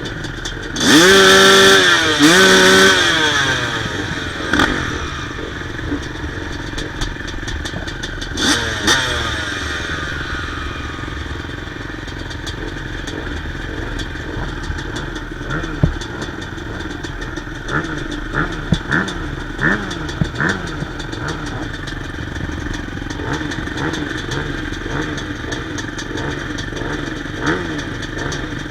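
Yamaha YZ250 single-cylinder two-stroke dirt bike engine revved hard twice about a second in, each rev rising and falling in pitch. It then runs on more quietly, with a few short throttle blips later on.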